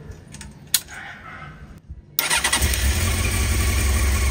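Honda CBR900RR Fireblade's inline-four engine running steadily, cutting in abruptly about two seconds in. Before it there is only light handling noise and one sharp click.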